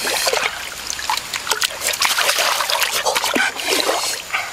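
A clay pot being dipped into shallow pool water and swished about, with repeated splashing and trickling water.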